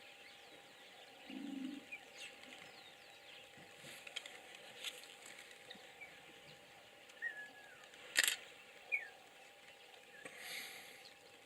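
A hippo gives a brief low grunt about a second in, with scattered short bird chirps around it. A sharp click a little past the middle is the loudest sound.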